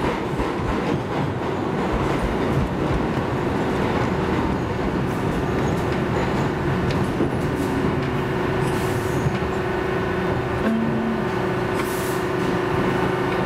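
Bombardier R62A subway train running at speed, the steady rumble of its wheels on the rails heard from inside the front car. A steady low tone joins in about halfway through.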